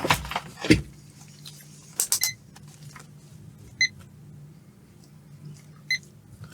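A few clicks and knocks of multimeter probes being handled, then two short beeps from a UNI-T UT61E+ multimeter about two seconds apart, over a low steady hum.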